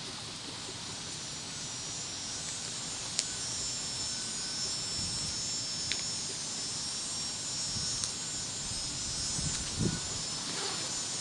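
Steady outdoor hiss with a high, droning edge that swells slightly, over which turnout gear rustles and a few sharp clicks of clasps and fasteners sound as a firefighter's coat is pulled on and closed.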